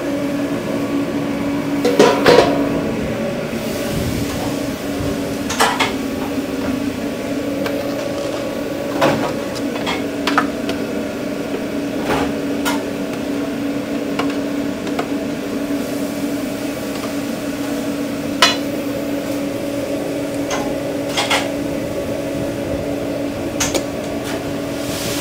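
Steady hum of food-truck kitchen equipment, with scattered sharp clinks and knocks of utensils and containers being handled; the loudest knocks come about two seconds in.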